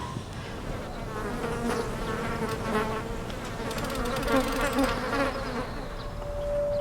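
An insect buzzing close by, its drone wavering in pitch. A steady held tone starts near the end.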